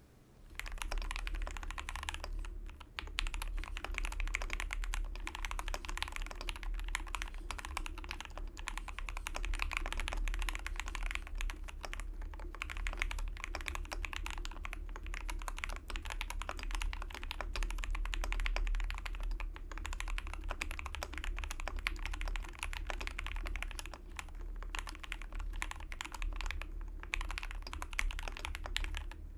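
Fast, continuous typing on a custom 60% mechanical keyboard: lubed SP-Star Vanilla switches on a brass plate in an aluminium case, with PBT keycaps. It is a rapid, dense stream of key clacks that starts just under a second in, over a steady low hum.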